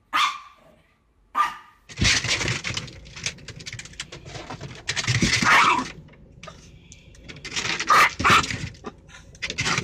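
A small dog yaps twice; then a dog barks repeatedly at a car's moving windshield wiper, over a rushing, scraping noise.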